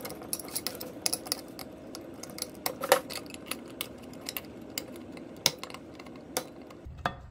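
Irregular small metallic clicks and taps of pliers working at the clip and metal parts on the recoil starter pulley of a Johnson 5.5 hp outboard, over a faint steady hum.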